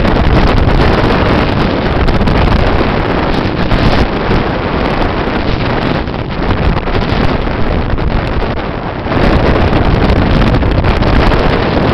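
Loud wind buffeting the microphone, mixed with the rush of water and spray as a K130 corvette's bow cuts through waves at about 26 knots. The wind noise eases for about a second some eight seconds in, then returns.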